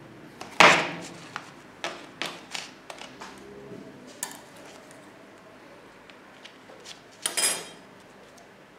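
Metal ice-cream-roll spatulas clinking and tapping against the steel cold plate and the paper cup while rolled ice cream is set in the cup: one sharp clink about half a second in, then a run of lighter taps over the next few seconds, and a short rougher scrape near the end.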